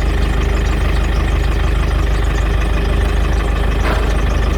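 Car engine running at low revs, heard from inside the cabin as a steady low hum.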